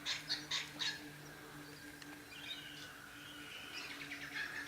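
Wild birds calling: a quick run of about four short, sharp chirps in the first second, then warbling calls from about halfway through, over a steady low hum.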